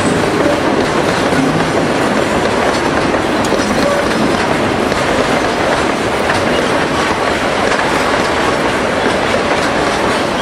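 Ore train cars rolling past, a steady dense rumble and clatter of steel wheels on the rails.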